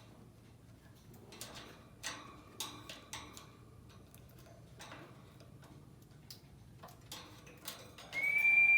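Lovebird giving short, sharp chirps, a few at a time and spread out, then a loud, shrill, held call near the end.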